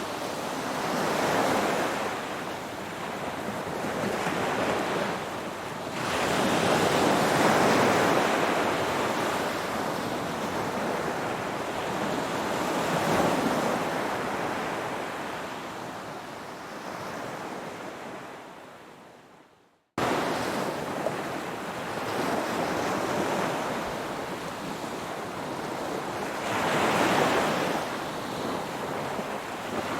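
Ocean waves breaking and washing ashore, the surf swelling and ebbing every few seconds. About two-thirds of the way through, the sound fades away to silence and then cuts straight back in, an edit join in the recording.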